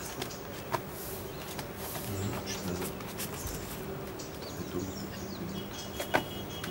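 Outdoor ambience of faint bird chirps over a steady low hum, with a few sharp clicks; the loudest click comes about six seconds in.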